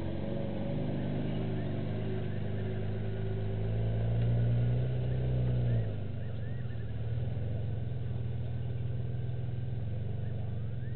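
A vehicle's engine running steadily. Its note swells about four seconds in, then drops back suddenly near the six-second mark. Faint high chirps sound over it a few times.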